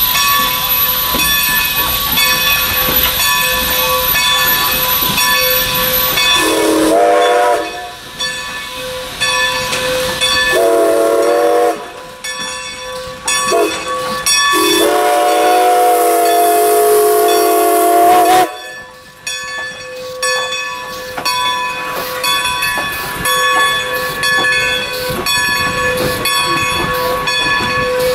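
Steam locomotive passing with a passenger train, its chime whistle blowing long, long, short, long (the grade-crossing signal), the last blast held about four seconds, over steady running noise and hiss. After the whistle, the passenger cars clack over rail joints in a regular rhythm.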